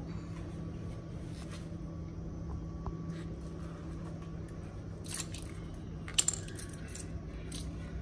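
Small metal parts clicking and clinking as they are handled, with two sharp clicks just after six seconds the loudest, over a steady low hum.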